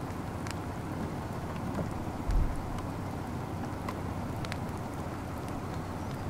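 Light rain falling: a steady low noise with scattered sharp drop ticks, and one brief low thump a little over two seconds in.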